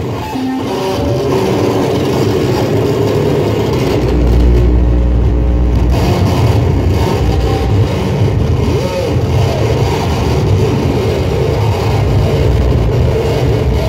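Live experimental noise music from table-top electronics: a loud, dense wall of droning noise with held tones, and a deep low rumble swelling in about four seconds in for roughly two seconds.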